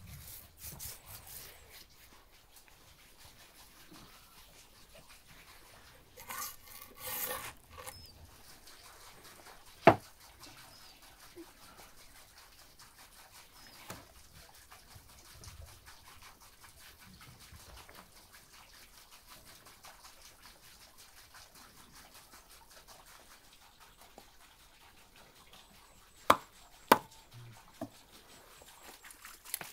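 Faint background sound broken by a few sharp knocks: a single loud one about a third of the way in and two close together near the end, with a short burst of rustling noise a few seconds before the first knock.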